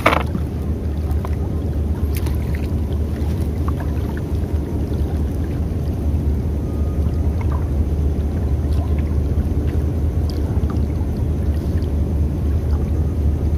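Steady low rumble of wind buffeting the microphone, with water lapping and gurgling against a small boat's hull; a sharp click right at the start.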